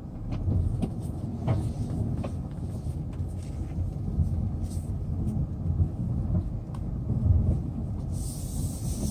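Hyundai Sonata Brilliant pulling away and driving slowly, heard from inside the cabin: a steady low rumble of engine and tyres with scattered small clicks, and a brief hiss about eight seconds in.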